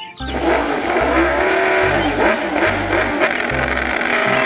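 Suzuki MotoGP racing motorcycle's inline-four engine revving, its pitch rising and falling again and again, with background music and a steady beat underneath.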